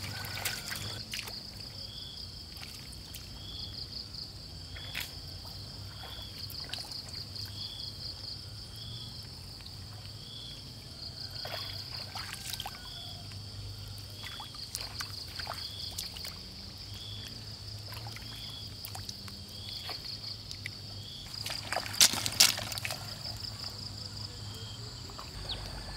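Shallow muddy paddy water sloshing and splashing as snails are picked by hand from the mud, with scattered small splashes and two louder ones near the end. Under it, a steady high insect trill and a short chirp repeating about every second and a half.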